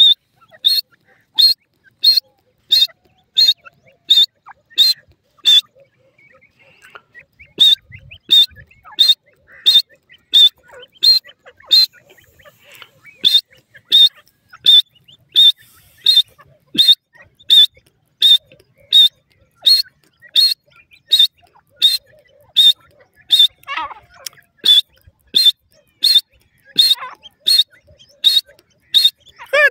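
Grey francolin (teetar) calling: a long series of short, shrill, high-pitched notes repeated evenly about every 0.7 seconds, with two brief pauses about six and twelve seconds in.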